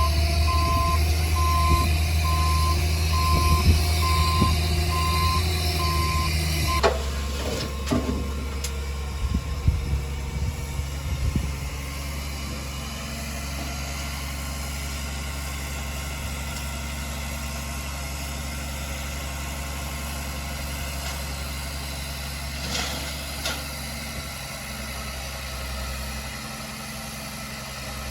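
A heavy construction vehicle's back-up alarm beeping steadily over its diesel engine as it reverses; the beeping stops about seven seconds in, a few knocks and clanks follow, and the engine then runs on steadily, a little quieter.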